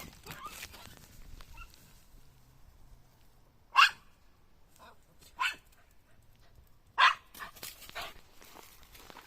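Puppy barking: three short, sharp barks a second or two apart, the first and last loudest.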